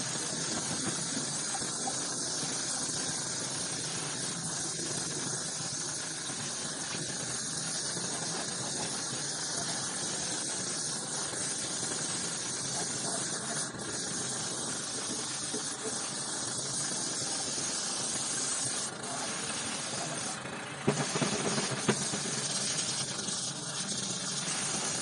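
Gravity-feed spray gun hissing steadily as compressed air atomises paint onto a motorcycle frame. Near the end the hiss breaks off briefly a couple of times, with two sharp clicks.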